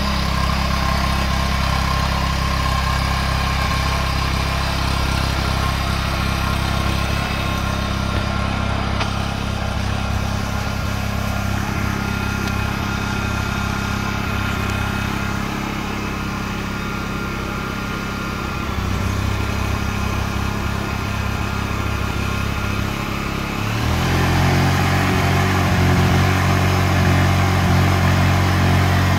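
Honda EU10i inverter generator's single-cylinder four-stroke GXH50 engine running steadily with a lamp plugged in as load. About five seconds before the end its engine speed steps up and it runs louder and higher.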